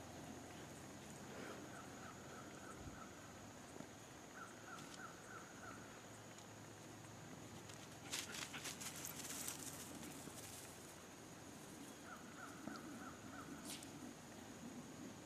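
Quiet outdoor ambience with a bird calling three times in short runs of rapid repeated chirps over a faint steady high whine. About eight seconds in, two or three seconds of rustling and crackling: dogs running through tall dry grass.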